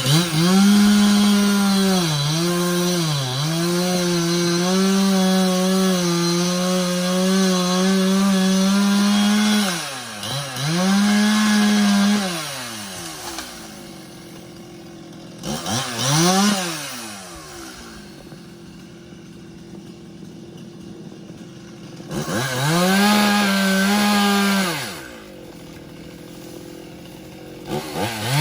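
Chainsaw cutting tree limbs. The engine is held at high revs for about nine seconds, dipping in pitch twice near the start, then drops to idle. It is revved up again three more times with idle between: about two seconds, a brief blip, then about three seconds, and it rises again at the very end.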